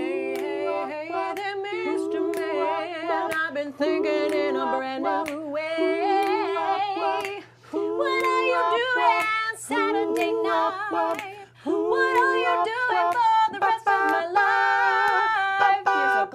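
Several voices, men and women, singing a slow pop love song in harmony, with held, wavering notes, to a lightly strummed ukulele.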